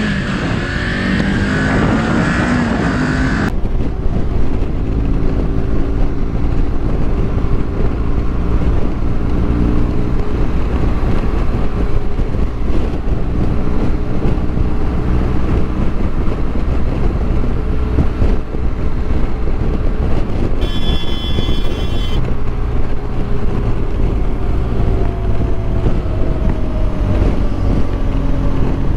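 Motorcycle engine running at highway cruising speed, its note drifting slowly up and down, under heavy wind rush on the helmet-camera microphone. About three-quarters of the way through, a brief high-pitched tone sounds for about a second and a half.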